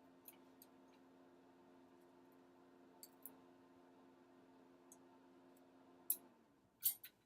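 Faint, sparse clicks of small repair tools against a clarinet's metal keywork as a stuck pivot screw is worked loose, with a few sharper clicks near the end. A low steady hum sits underneath and fades out about six seconds in.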